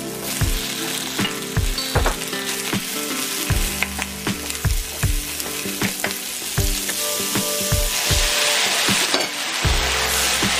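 Sliced bell peppers, onion and carrot sizzling in a hot oiled wok, stirred with a wooden spatula that knocks and scrapes against the pan many times. About eight seconds in the sizzle grows louder and brighter as the beef strips go back into the pan.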